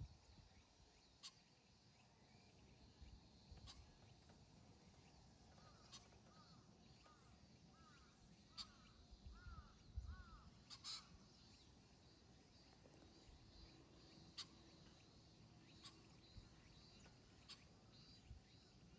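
Quiet outdoor ambience with a bird calling a run of about seven short, repeated notes in the middle, and a few scattered sharp ticks.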